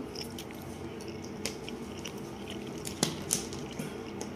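The plastic toy capsule of a Kinder Surprise egg being pried open and handled, giving a few light, sharp plastic clicks over a faint steady background tone.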